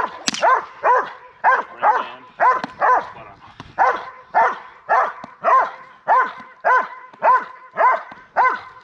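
Doberman barking steadily and repeatedly, about two barks a second, each bark rising and falling in pitch.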